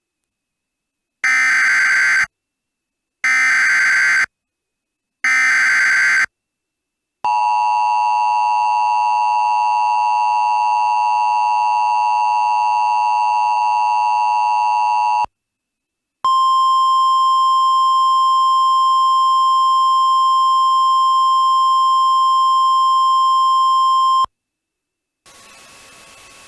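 Emergency Alert System tones: three one-second bursts of buzzing SAME data header, then the two-tone EAS attention signal held steady for about eight seconds, a short pause, and a single steady alert tone for about eight seconds. A faint steady hum starts near the end.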